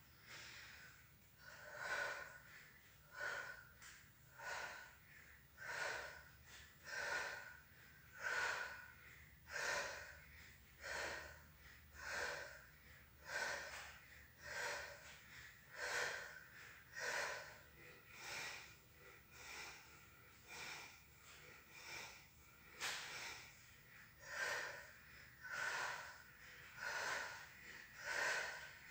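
A woman breathing hard while doing squats: a loud breath with every repetition, about one a second, in a steady rhythm.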